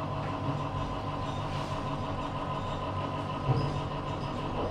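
Schindler D-series passenger lift travelling up: steady hum of the car and drive in motion, with a brief knock about three and a half seconds in.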